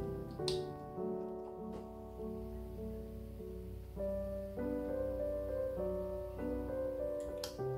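Background piano music, one note or chord after another, with two brief clicks about half a second in and near the end.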